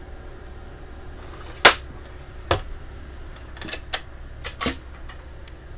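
A pull-out, flip-over counter extension panel and its cabinet hardware being handled: a loud sharp clack about a second and a half in, another knock a second later, then a run of lighter clicks and taps.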